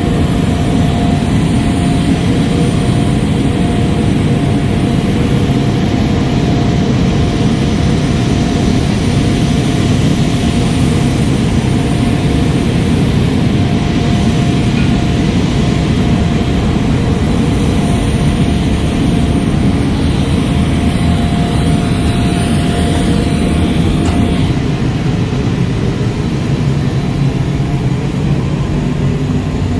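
F-16 Fighting Falcon's jet engine running, a loud steady rumble with a thin steady whine over it.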